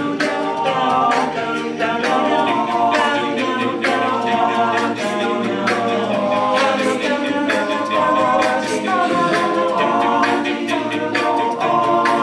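A cappella group singing sustained chords in close harmony, with vocal percussion keeping a steady beat.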